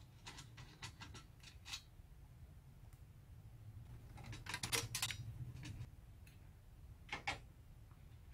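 Screwdriver and screws clicking and scraping on the perforated sheet-metal shield of a VCR's digital video processing box as it is unscrewed and lifted out. Light scattered clicks at first, a denser cluster of clicks and rattles about four and a half seconds in, and a couple more near the end.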